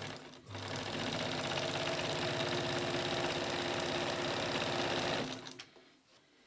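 1957 Necchi Supernova Automatica electric sewing machine stitching a straight seam through fabric. It starts about half a second in, runs at a steady speed and stops about five seconds in.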